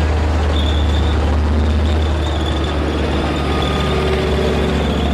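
Steady, loud machine noise with a deep hum and a faint high whine.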